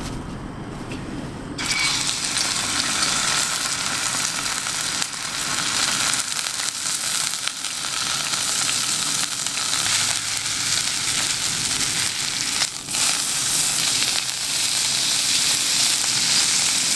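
Beef tenderloin steak sizzling in a hot stainless frying pan, the sizzle starting suddenly about a second and a half in as the meat goes into the pan and carrying on steadily as it sears.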